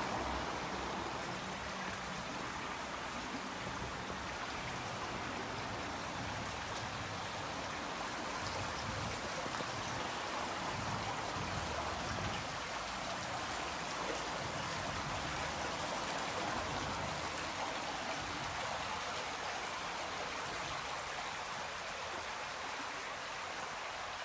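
Small river's water rushing over a low step into a pool, a steady even rushing noise.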